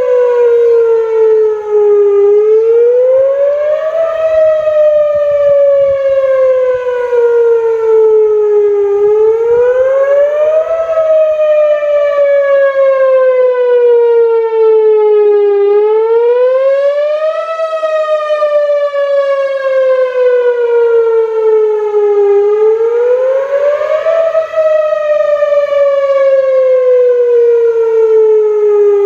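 Whelen Vortex R4 rotating electronic outdoor warning siren sounding its wail tone for a scheduled test: a loud, steady tone whose pitch rises quickly, then falls slowly, about every seven seconds, four rises in all.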